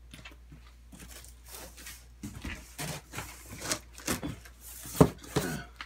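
Cardboard shipping box being opened and its contents handled: irregular scraping and rustling of cardboard and packing, with several knocks, the loudest a sharp knock about five seconds in.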